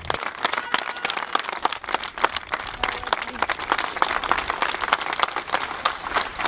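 Crowd applauding: many people clapping steadily in the open street.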